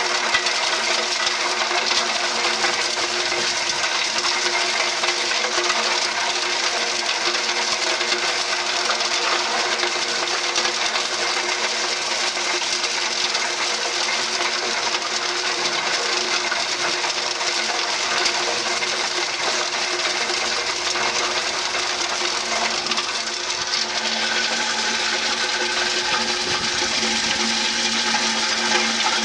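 Q-Sage debearder running steadily while dishwasher pods are fed through, its beaters knocking the soap out of the packets. It gives a steady machine hum under a dense, fine rattle of pod pieces and soap granules.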